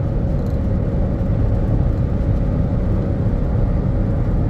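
Steady road noise inside a car's cabin cruising at highway speed: a low rumble of tyres and engine, with a faint steady hum.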